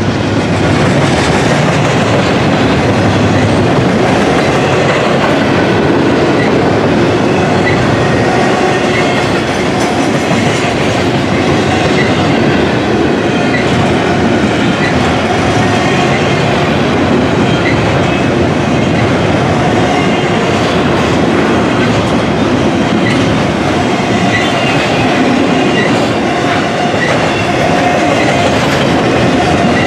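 Double-stack intermodal container cars rolling past at close range: a loud, steady rumble and clatter of steel wheels on the rails, with brief high squeaks from the wheels now and then.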